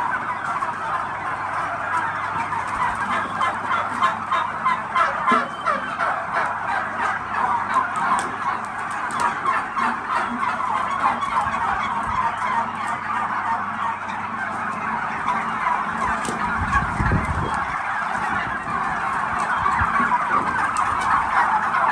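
A large flock of domestic turkeys calling all at once: a dense, continuous chatter of many overlapping gobbles and calls.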